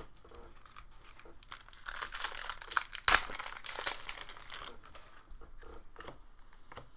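Foil wrapper of a Panini Prizm basketball card pack crinkling as it is torn open, with one sharp rip just after three seconds in.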